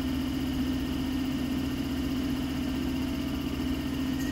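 London Underground 1973 Stock train standing still with a steady low hum and faint high whines.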